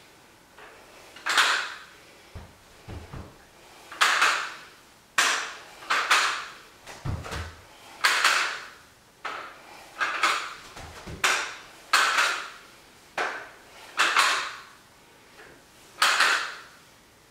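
Adjustable block dumbbells rattling and clacking with each rep, a sharp clack roughly every second or so, with a few dull low thumps in between.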